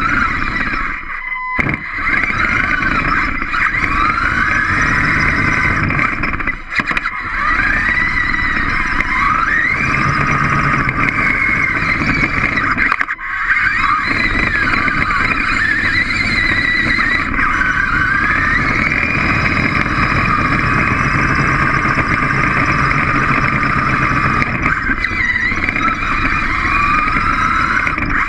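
A small robot's electric drive motors and gears whining close by, the pitch rising and falling as it speeds up and slows down, over a steady mechanical rumble. The motors briefly stop about a second and a half in, again near 7 seconds and near 13 seconds.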